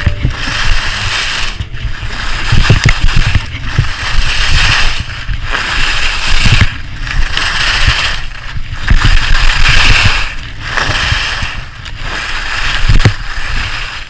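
Skis carving turns on freshly groomed snow, the edges scraping in swells that rise and fall about every one and a half to two seconds, over a low rumble of wind on the microphone.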